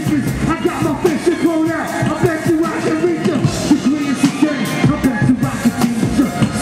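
Live hip hop performance: a rapper's vocals over a loud, steady beat.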